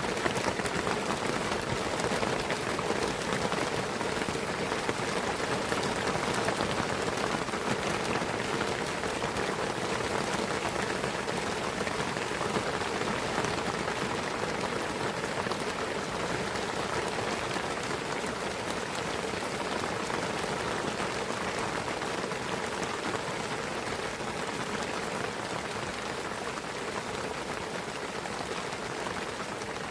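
Steady rain falling in a pine forest, a dense even patter of raindrops on foliage and the ground, easing slightly near the end.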